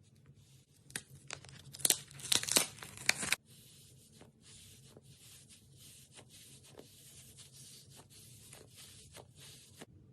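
Slime being played with by hand: a run of sticky crackles and clicks, loudest for about a second and a half from roughly two seconds in, then softer, steady crackling that stops just before the end.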